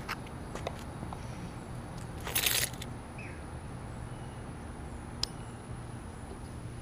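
Faint outdoor background with a low steady hum, a few small clicks, and a brief rustle about two and a half seconds in.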